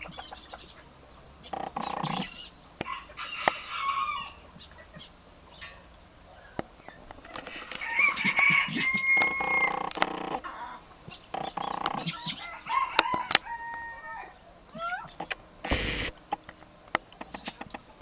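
Fowl calling: a loud drawn-out call lasting about two seconds from eight seconds in, then short whistled notes around thirteen seconds, with a brief noisy burst near sixteen seconds.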